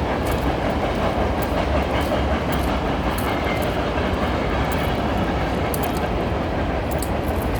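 A train passing: a steady, continuous rumble of the train going by, with scattered faint clicks over it.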